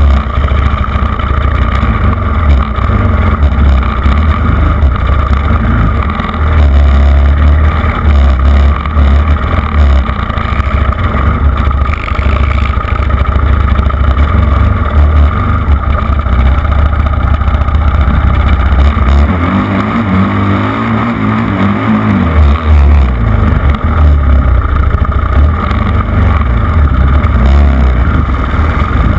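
Quad bike engine running under way across rough sandy ground, loud and muffled with a heavy low rumble. About twenty seconds in the rumble thins for a couple of seconds and a wavering engine note comes through, then the rumble returns.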